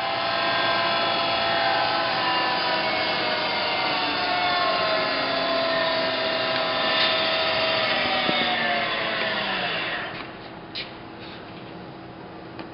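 Variable-speed head of a Sharp vertical milling machine running, a whine of several tones together. The spindle speed is turned down with the speed-change handwheel: the tones slide lower from about halfway, and near the end the sound falls away to a much quieter steady hum.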